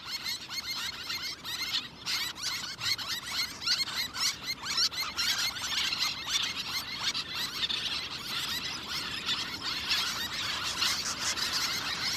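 Little tern colony calling: many high, short, squeaky calls overlapping in a continuous chatter.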